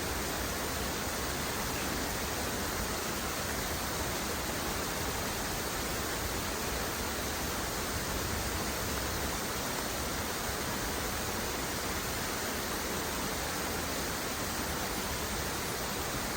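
Falling water making a steady, even rush, with no separate drops, splashes or changes.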